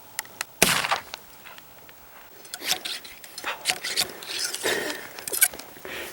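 A muzzleloader rifle firing once: a single sharp report with a short ring-out, about half a second in, after a couple of faint clicks. Scattered clicks and rustling follow.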